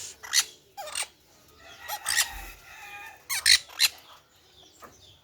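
Caged birds, quail and parrots sharing one cage, giving a series of short, sharp calls, several coming close together about three and a half seconds in.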